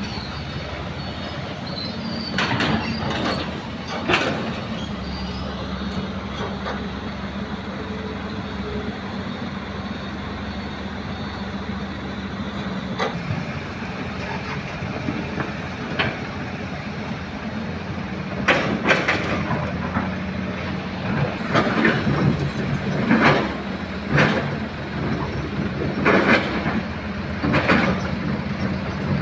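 Excavator and dump truck working together: a heavy diesel engine runs steadily under repeated metallic clanks and knocks, which come more often in the second half.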